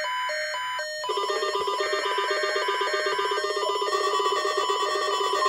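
Electronic alert tones from a NOAA Weather Radio weekly test: an evenly pulsed beeping that changes about a second in to a fast, buzzy repeating alarm, with a steady high tone growing stronger under it toward the end.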